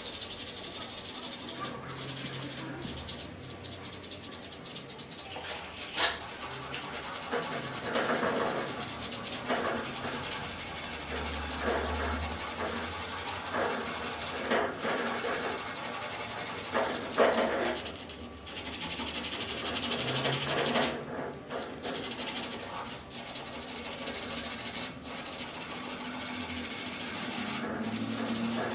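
Sandpaper rubbed by hand back and forth over the bare metal of an antique axe head, a continuous scratchy rasping with a couple of brief pauses.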